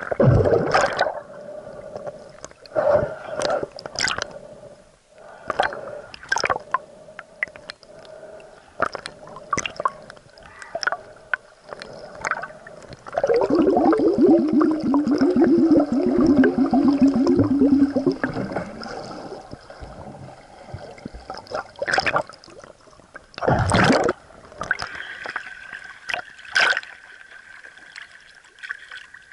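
Water gurgling and bubbling around a camera held underwater, with many small clicks and knocks on the housing and a longer stretch of bubbling in the middle. Near the end the camera breaks the surface with a splash, and a faint steady tone follows.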